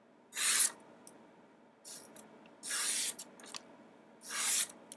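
O1 tool-steel blade of a Blind Horse Knives Scatty Crafter slicing through a sheet of paper to test its edge: three short hissing cuts, the last two the loudest.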